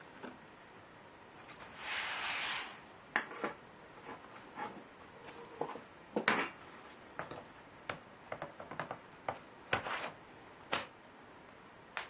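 Scattered clicks and light knocks of small parts and tools being handled during laptop reassembly, with a brief rustle about two seconds in.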